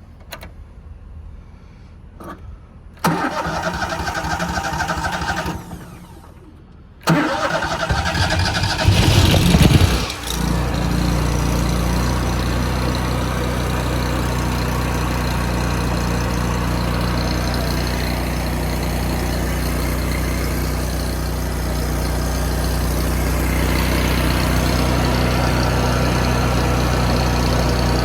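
Engine of a truck-mounted Miller welder being started: it cranks for a couple of seconds without catching, cranks again, fires about ten seconds in, then settles into a steady run.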